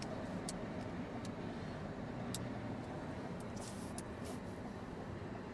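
Steady low hum inside a car cabin with the vehicle running, with a few faint clicks and soft rustles.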